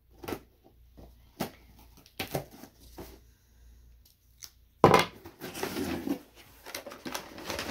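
Cardboard box being opened by hand: a few scattered clicks and scrapes, then a sudden loud tearing about five seconds in, running on into rustling of the box and its packing.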